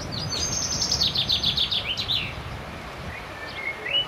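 A songbird singing: a fast run of high notes falling in pitch over about two seconds, then a few short whistled notes near the end.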